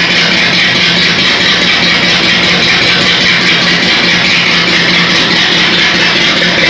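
Shelby GT500's V8 engine idling steadily at a constant level, with no revving.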